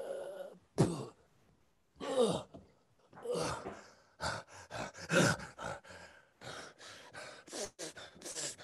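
A man's wordless vocal sound effects: a few groan-like sighs, some falling in pitch, then a run of quick short breaths, about four a second.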